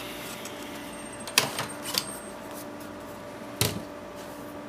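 Sharp clicks from a 3.5-inch floppy drive being unplugged and lifted out of an opened IBM PS/2 Model 50: a few clicks about a second and a half in, then a louder knock a little after three and a half seconds in. A steady low hum runs underneath.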